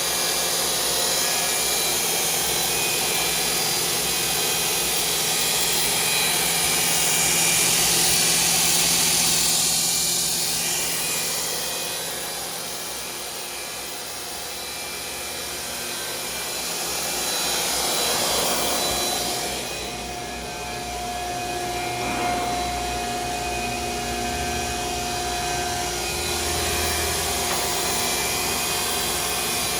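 A Heald 273A internal grinder running under power: a steady machine noise with several steady tones. It swells and eases twice, and a new steady higher tone sets in about two-thirds of the way through.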